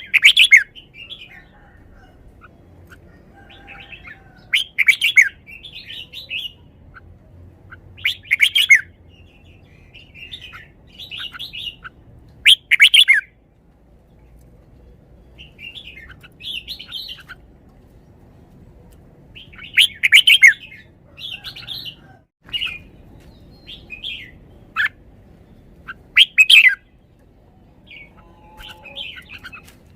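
Red-whiskered bulbul singing: six loud, short warbled song phrases a few seconds apart, with quieter chattering notes in between.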